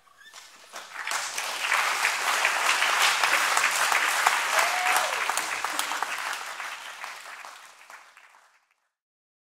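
Audience applauding at the end of a performance, building up over the first second or two, holding, then dying away and stopping shortly before the end.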